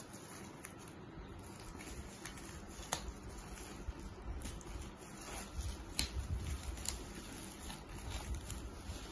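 Hands handling a bundle of paperback workbooks, with rustling and a few light clicks and taps.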